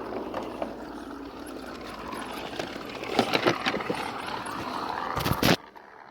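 Radio-controlled scale rock crawler working over rough ground: its small electric drivetrain running under a steady outdoor hiss, with scattered clicks and a quick run of sharp knocks from the truck on the terrain. Near the end a loud scraping knock, after which the sound drops away suddenly.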